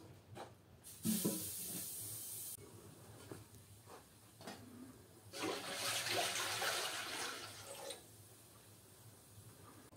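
Water poured from an aluminium milk can into a large aluminium pot, in two spells: a short pour about a second in that stops abruptly, then a longer one from about halfway to near the end.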